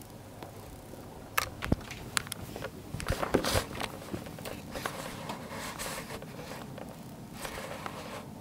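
Handling noise of a handheld camera being moved close to the floor: a few sharp clicks and knocks about a second and a half in, then a spell of crackling rustle around three to four seconds in, settling into a low rustle.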